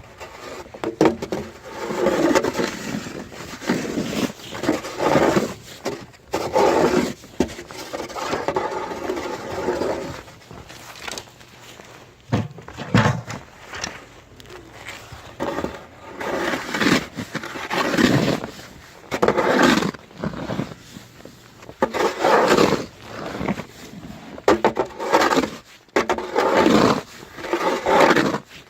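Snow-clearing tool scraping and pushing snow in repeated strokes, each a second or two long, at an uneven pace.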